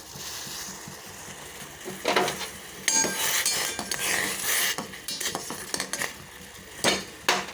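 A metal utensil clinking and scraping against a kadai as the pot of boiling spiced tea water is stirred, over a low steady sizzle from the boil. There is a clatter of metallic rings in the middle and two sharp clinks near the end.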